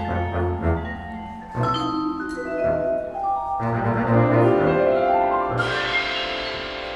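Live jazz on vibraphone and upright double bass: ringing mallet notes over plucked bass notes, with a rising run that builds to a fuller, brighter sound about five and a half seconds in.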